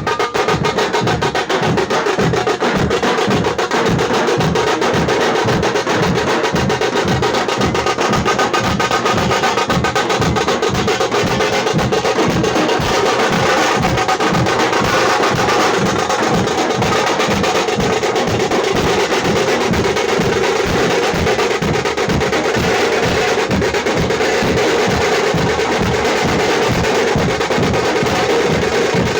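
Tamate, the South Indian folk frame drum beaten with sticks, played in a fast, steady, unbroken rhythm.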